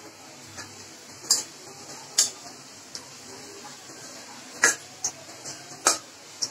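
Metal spatula clinking and scraping against a steel kadai while onions are stirred in oil: a handful of sharp clinks at uneven intervals, about a second apart.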